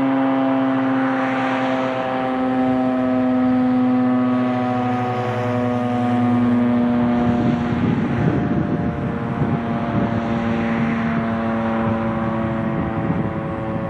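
Federal Signal STH-10 rotating dual-tone fire siren sounding a steady, loud wail during an attack test. It swells and fades every few seconds as the rotor sweeps around. The pitch sags slightly about five seconds in, and a rough rumble joins underneath from about seven seconds.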